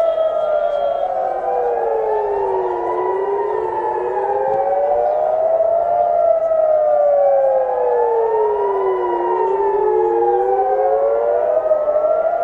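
Several civil-defence air-raid sirens wailing at once, each slowly rising and falling over roughly six seconds and out of step with the others, so their tones cross. They are sounding a warning of incoming missiles.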